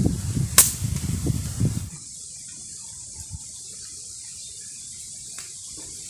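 A single sharp air rifle shot about half a second in, over low rumbling noise on the microphone. The rumble stops suddenly about two seconds in, leaving a steady faint hiss.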